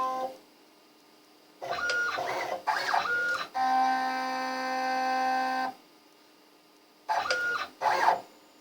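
CNC router's stepper motors driving the axes through a probing cycle with a wired corner/center finder. The whine comes in a cluster of short jerky moves, then one steady move of about two seconds, then two quick short moves near the end, with pauses in between.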